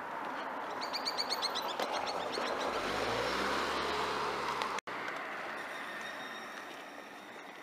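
Outdoor roadside ambience: a bird chirps in a rapid series of short high notes for about two seconds, then a vehicle passes with a low rumble. The sound cuts off suddenly a little under five seconds in and gives way to a quieter, steady background.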